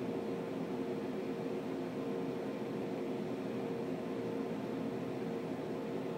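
Steady machine hum: an even hiss with one constant droning tone, unchanging throughout.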